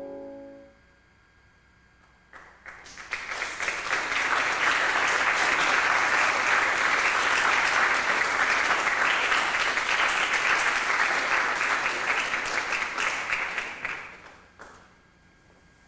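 The last held chord of a bassoon quartet dies away. After a second or two of quiet, an audience applauds: the clapping builds quickly, holds steady for about ten seconds, then fades out.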